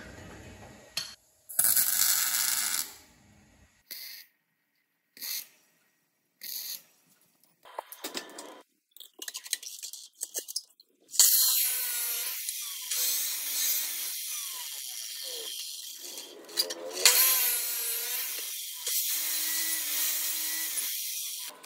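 Abrasive cut-off saw (Maktec chop saw) cutting steel tube: a loud, sustained grinding hiss from about halfway through, with the motor's pitch falling as it spins down between cuts. Before that come a few short, separate bursts of tool noise with silence between them.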